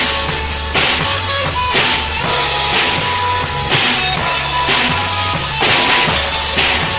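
Music track with a drum kit keeping a steady beat over a sustained low bass line.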